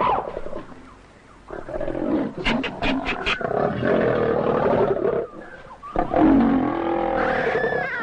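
Leopard snarling and roaring as it attacks a monkey, with a quiet gap about a second in and a quick run of sharp snaps around three seconds in.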